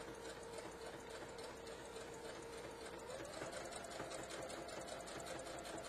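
Home sewing machine stitching a row of pintucks with a 2 mm twin needle and pintuck foot, running steadily at a rapid stitch rate. About three seconds in, the motor hum rises in pitch as the machine speeds up.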